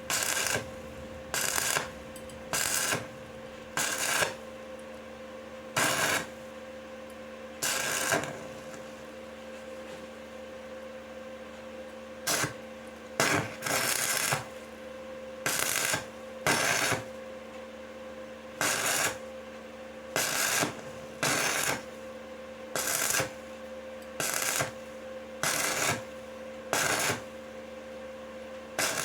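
Stick (arc) welding on a steel pipe with the interrupted-arc technique: about twenty short crackling bursts as the electrode arc is struck and broken again, each about half a second long and mostly one to two seconds apart, with a longer pause near the middle. A steady low hum runs underneath. The pauses between dabs keep the thin pipe wall from burning through.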